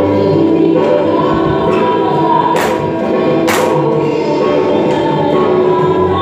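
Tagalog worship song playing: group singing over a band. Two short, sharp noise hits land about a second apart midway.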